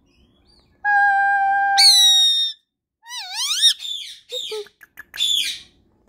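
Indian ringneck parakeet calling: a held whistle of about a second that jumps abruptly to a higher, shrill note, then swooping warbled calls and a string of short, choppy squawks.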